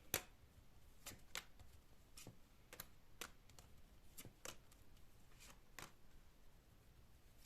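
Faint, irregular clicks and soft taps of tarot cards being handled: drawn from the deck and laid down on the table.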